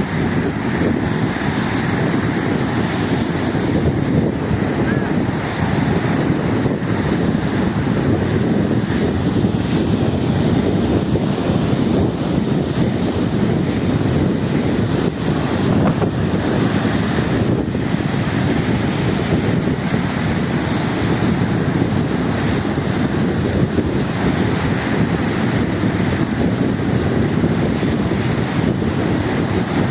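Steady rush of sea and wind, with wind buffeting the microphone.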